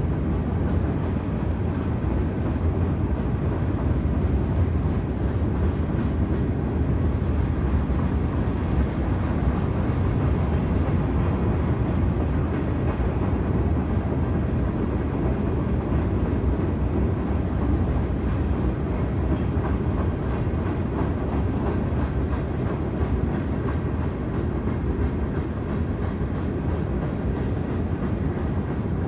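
Providence and Worcester stone train's loaded freight cars rolling past on the rails, a steady low noise with some clickety-clack that holds unchanged throughout.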